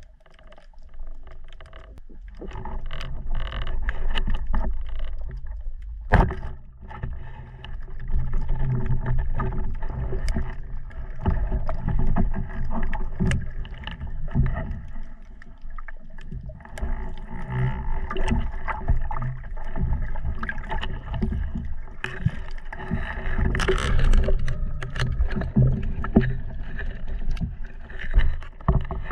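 Underwater recording: the steady hum of a boat motor carrying through the water, with scattered clicks and knocks, the sharpest about six seconds in.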